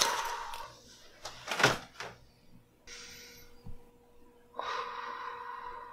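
A single dull thump about one and a half seconds in, as a body settles back onto a bed, followed by short hissing swells and a faint steady electronic tone that begins about halfway through.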